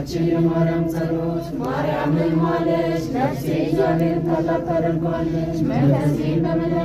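A group of voices chanting an Ethiopian Orthodox hymn to the Virgin Mary in unison, the pitches held steady with slow melodic turns.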